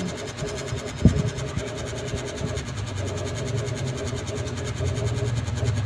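A steady hum with one sharp thump about a second in.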